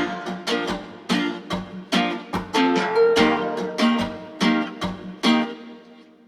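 Music: an acoustic guitar strumming chords in a steady rhythm, about two strums a second, dying away near the end.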